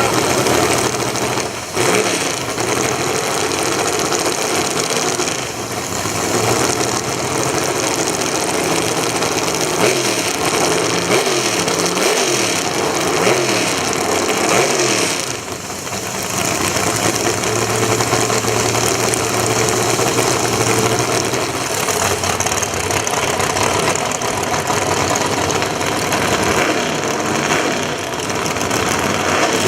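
Drag-race car engines running loud and revving, the pitch wavering up and down repeatedly through the middle, with a brief lull about fifteen seconds in.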